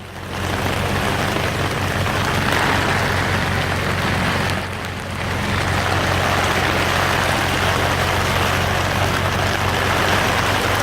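Swamp buggy engine running with a steady low drone under the dense, even hiss of heavy rain, easing off briefly about halfway through.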